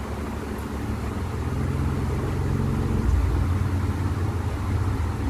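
Steady low hum of a running motor: several held low tones under a faint hiss, swelling slightly about halfway through.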